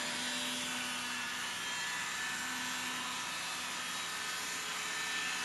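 Steady whooshing running noise with a faint constant hum from an N gauge model Shinkansen setup run by a modified Densha de GO! controller. The sound comes from the model's motor and the controller's train sound effects.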